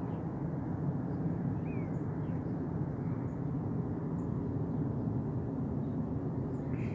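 Steady low rumble of a jet airliner flying high overhead. A faint bird chirp comes about one and a half seconds in.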